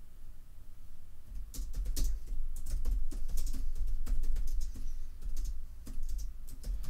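Typing on a computer keyboard: irregular clicks, several a second, starting about a second and a half in, over a low rumble.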